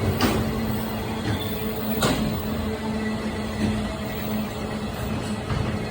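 Freight train passing: a steady rumble with a constant low hum, and two sharp clacks about two seconds apart.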